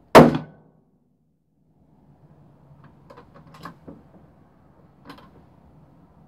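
A single shot from a Savage bolt-action rifle in .223, very loud and sharp, dying away within half a second. About three seconds in comes a quick run of metallic clicks, with one more click about five seconds in, as the bolt is worked to eject the spent case and chamber the next round.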